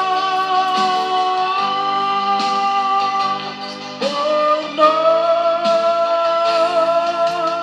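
Gospel worship music: long held melody notes over a backing band with cymbal hits, the melody moving to a new note about four seconds in.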